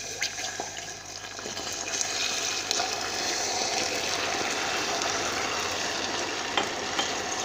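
Water being poured into a pan of hot molten caramel, hissing and bubbling hard as it hits the hot sugar. The hiss starts suddenly, grows louder over the first couple of seconds, then holds steady.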